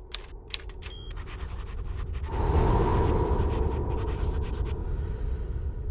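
Typewriter keystroke clicks with a short bell ding about a second in, as a title types out letter by letter. From about two seconds a rushing noise with a low hum swells and grows much louder.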